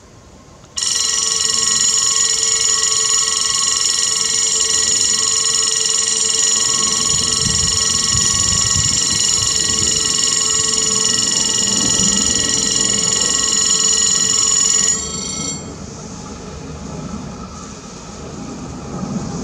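Level-crossing warning bell ringing loudly and continuously as the crossing activates for an approaching train. It starts abruptly about a second in, keeps ringing while the barriers lower, and cuts off about 15 s in once they are down, leaving a fainter low noise that swells near the end.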